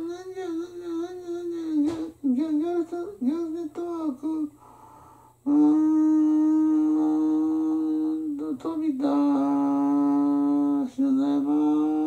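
A man humming with closed lips, wordless: short wavering notes for the first few seconds, then two long held notes of about three and two seconds, with brief breaks between.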